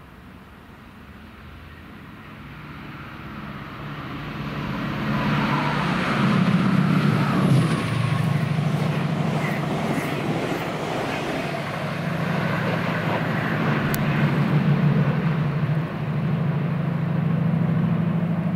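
Chiltern Railways Class 68-hauled train with Mk3 coaches passing at speed: a diesel engine drone with wheel and rail noise, growing over the first few seconds and staying loud.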